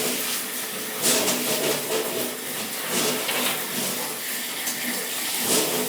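Running water: a steady hiss.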